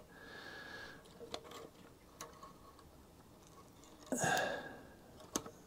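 Faint metal clicks of needle-nose pliers and a governor spring against the carburettor throttle arm of a Honda OHC mower engine, as the spring's hook is worked into its hole. A short, louder breath sounds about four seconds in.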